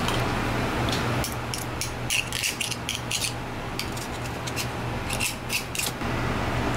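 Shucking knife scraping against a scallop shell as the meat is cut free: a run of short, quick scrapes, bunched in two spells, over a steady low hum.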